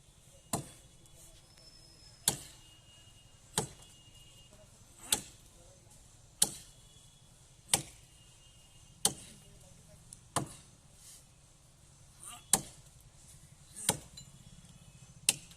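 Steady chopping blows of a blade into a mango tree, eleven strikes at a slow, even pace of about one every second and a half, each a sharp knock.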